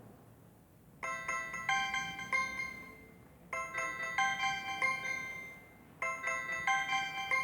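A BlackBerry 9790 ringtone playing: a short melody of ringing notes that starts about a second in and repeats three times, about two and a half seconds apart.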